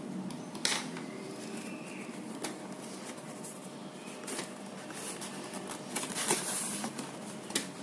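Hands handling a cardboard box and pulling its top flap open: scattered scrapes, rustles and light knocks of cardboard, the sharpest about six seconds in.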